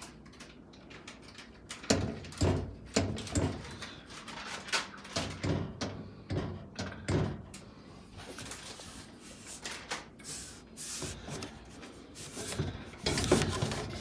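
Toshiba ML2-EM09PA countertop microwave rocking on its feet, knocking on the counter again and again at about two knocks a second; the feet are fitted incorrectly, so it doesn't sit level. Lighter scraping and handling sounds follow in the second half.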